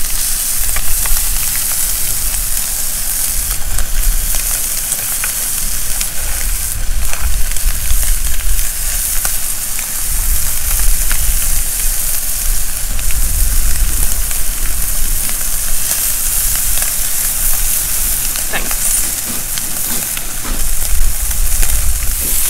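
Scallops searing in melted butter in a frying pan: a steady sizzle, with a low rumble underneath.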